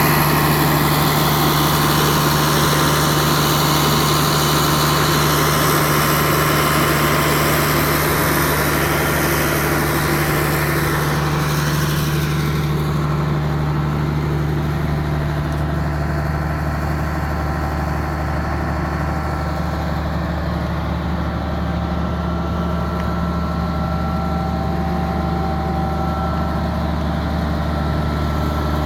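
New Holland TG285 tractor's diesel engine running steadily while ploughing, a deep even drone. A higher hissing noise over it fades out about twelve seconds in.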